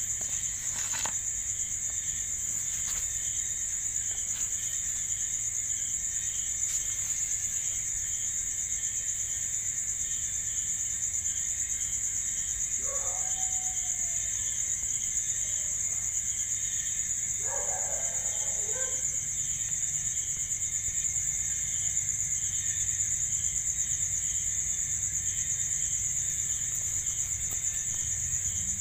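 Insect chorus: a steady high-pitched chirring with a second, pulsing layer lower down. Two brief faint calls come through it, about halfway through and a few seconds later.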